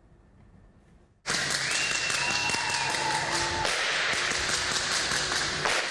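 Crowd applauding, a dense clatter of clapping that starts suddenly about a second in after a moment of near silence.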